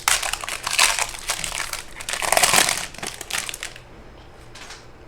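Plastic wrapper of a trading card pack crinkling as it is torn open and handled, loudest about halfway through, then dying down to a brief rustle near the end.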